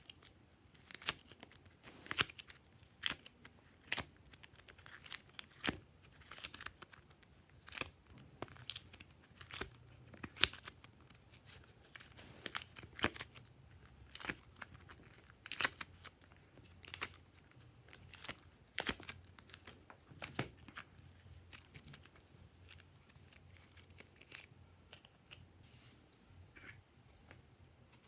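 Soft clay being pried out of a silicone honeycomb mould: irregular sharp, sticky tearing pops and clicks, roughly one or two a second, growing sparser near the end.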